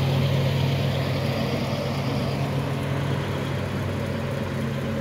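Caterpillar 966 wheel loader's diesel engine running steadily as the loader drives, a low hum that holds one pitch.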